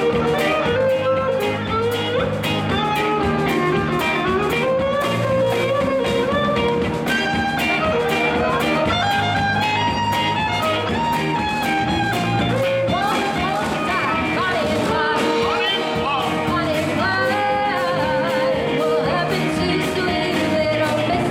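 Live band playing a bluesy rock song: a drum kit keeping a steady beat under electric guitar and bass, with a woman singing.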